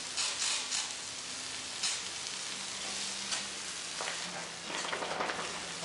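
Garden hose spraying a stream of water onto asphalt pavement: a steady hissing splatter that grows louder and rougher about four seconds in.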